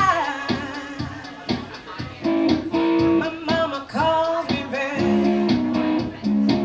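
Live singing with a strummed guitar. The strums come about four a second under a voice that slides down at the start and then holds long notes.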